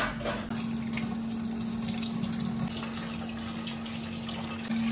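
Water running steadily, as from a tap, over a steady low hum; the rushing gets louder near the end.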